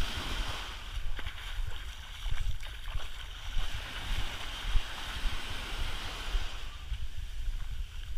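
Small waves breaking and washing up over a sandy beach, a steady hiss of surf that swells and eases, with wind buffeting the microphone in uneven low rumbles.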